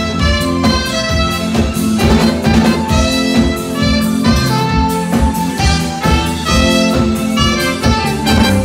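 Live band playing upbeat dance music, with a horn section of trumpet and saxophone riding over a drum kit's steady beat.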